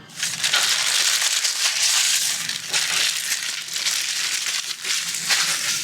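Trading-card pack wrappers being crinkled and crumpled by hand, a dense crackling that runs for about six seconds.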